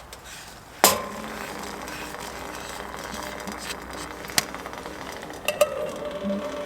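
Metal camp cooking pots clanking: one sharp clank about a second in that rings on briefly, then a few lighter clinks. A steady tone starts near the end.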